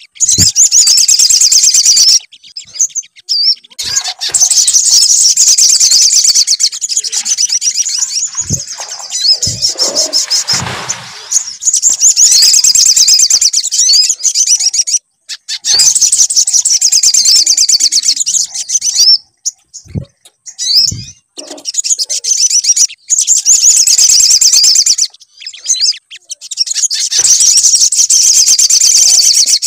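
Sogon (little spiderhunter) song played as a lure track for getting caged birds to sing: loud bouts of fast, high chattering trills lasting several seconds each, separated by short breaks, with a few low thumps between bouts.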